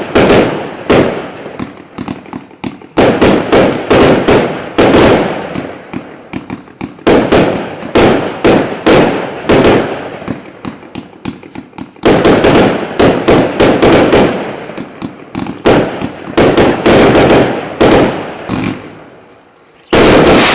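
Consumer firework battery (cake) firing: quick groups of sharp bangs every few seconds, each group trailing off. A short lull comes near the end, then one more loud bang.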